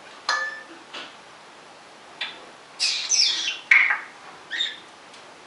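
African grey parrot calling: a string of short chirps and squawks, with a louder run of quick falling calls about halfway through.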